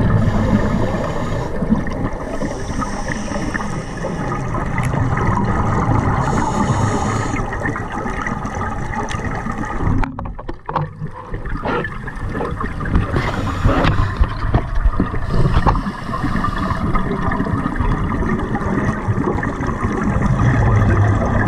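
Scuba diver breathing through a regulator underwater: hissing inhales and bubbling exhales coming back every few seconds, over a steady underwater rumble.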